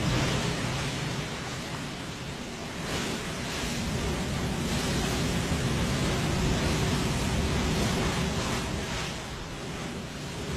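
Sea surf washing on a beach, a steady rush that swells and eases, mixed with wind on the microphone.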